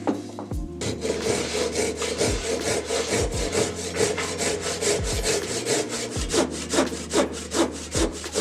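Double-edged Japanese pull saw (ryoba) cutting by hand into a hard maple block, in a steady rhythm of short rasping strokes. The strokes begin about a second in after a short pause and grow louder and more distinct near the end.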